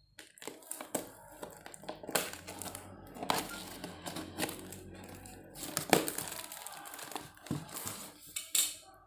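A snap-off utility knife slicing through a taped cardboard box, giving irregular scraping and clicking strokes, with cardboard and plastic packing tape crinkling and tearing as the cut flap is pulled open near the end.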